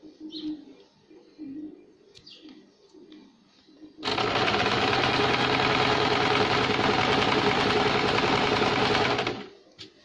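Electric domestic sewing machine running steadily at speed, stitching a straight seam; it starts abruptly about four seconds in and stops a little before the end.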